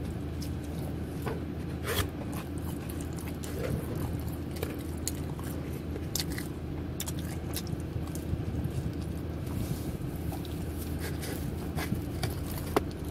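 A person chewing and biting pizza close to the microphone, with scattered small clicks and crackles, over a steady low hum.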